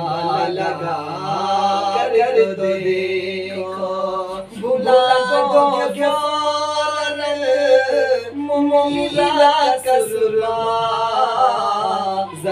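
A man reciting an Urdu naat unaccompanied, singing long held, wavering notes with no instruments.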